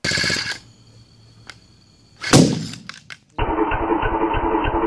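A 26cc two-stroke weed-eater engine running on hydrogen (HHO) gas sputters briefly, then one loud bang: a backfire through the carburetor that ignites the gas-filled balloon and bursts it. After that, a duller, steady pulsing of the engine running.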